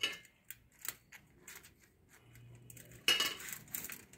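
Hands handling and rolling a filled egg roll on a ceramic plate: a few light taps and clinks against the plate, then a louder rustle about three seconds in.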